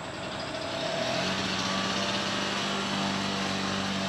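A small engine running steadily, with a steady hum that comes in and grows a little louder about a second in.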